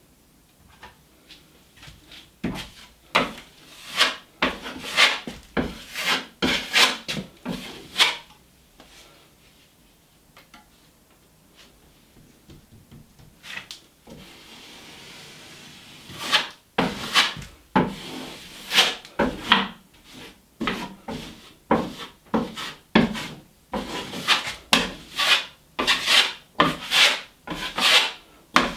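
Drywall knife scraping quick-setting joint compound across a drywall patch in quick repeated strokes, with a pause in the middle before the strokes resume.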